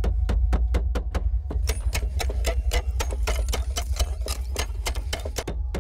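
Background music track with a fast, even ticking beat, about six clicks a second, over a steady deep drone.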